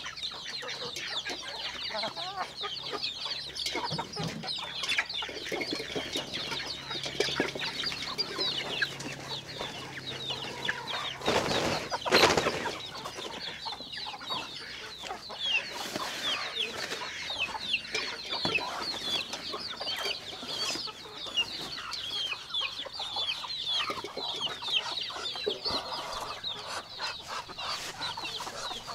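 A flock of chickens calling: a dense, continuous chorus of short high peeps and clucks. A louder rush of noise lasts about a second near the middle.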